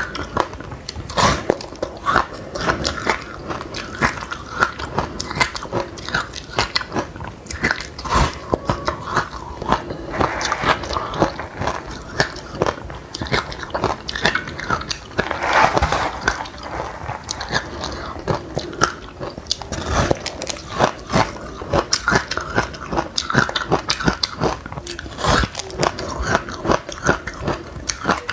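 Close-up crunching and chewing of dry chilli seeds and buckwheat grains: many small, sharp, irregular crackles from the teeth breaking the hard seeds.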